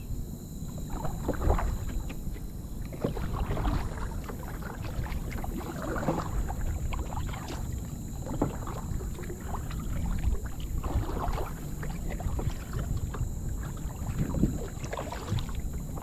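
Water splashing and sloshing around a kayak, with short splashes every second or two over a low wind rumble on the microphone.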